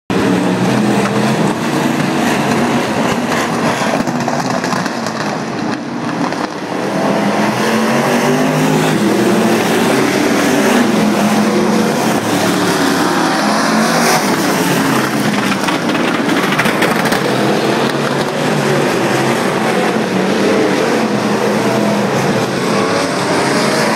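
A field of super street dirt-track race cars running hard around the oval, several engines at once, their pitch rising and falling as the cars pass. Loud throughout, easing briefly about six seconds in.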